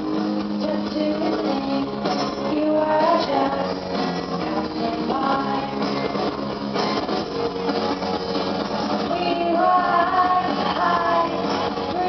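Music: a song with a singing voice over a steady accompaniment.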